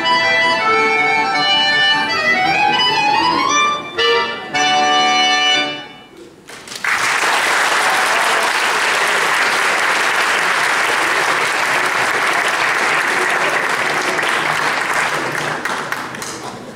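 Button accordion playing the close of a piece: a rising run and then final held chords that stop about six seconds in. An audience then applauds, and the applause fades out near the end.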